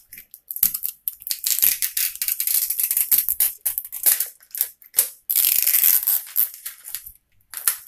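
Crinkly plastic wrapping on an L.O.L. Surprise ball being torn and peeled off by hand: a rapid, irregular run of crackling and tearing, most continuous about five to six seconds in.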